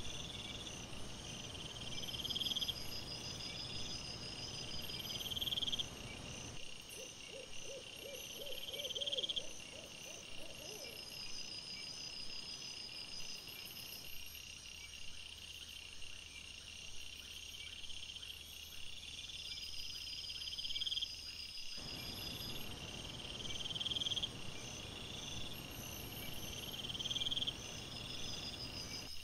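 Night insects, crickets, chirping in regular repeated pulses over a steady hiss, with a short run of lower rising notes about seven seconds in.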